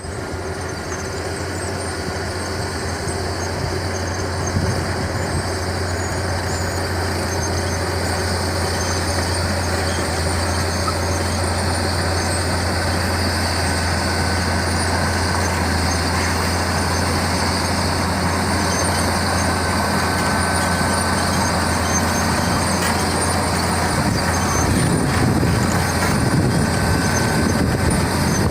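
Crawler bulldozer's diesel engine running steadily with a deep hum, getting gradually louder and heavier about three-quarters of the way through as the machine works the sand.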